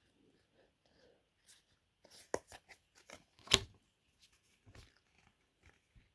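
Faint rustling and clicking of trading cards being handled and leafed through one by one, with two sharper taps, the loudest about three and a half seconds in.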